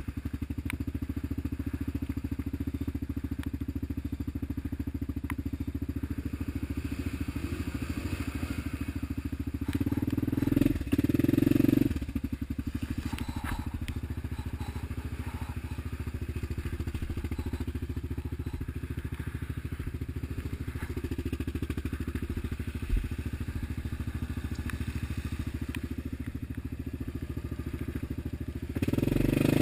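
Yamaha Grizzly 550 ATV's single-cylinder engine running at low speed, with the throttle opened up briefly about ten seconds in and again near the end.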